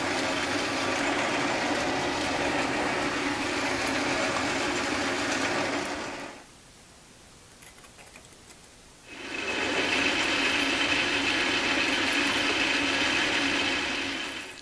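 Belt-driven metal lathe running, drilling into a metal part with a bit in the tailstock chuck. The machine sound stops for about three seconds in the middle, then resumes with a high steady whine added.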